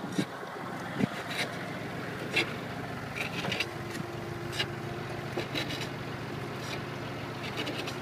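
Tractor engine running steadily while pulling a cabbage transplanter through the field, with occasional light clicks.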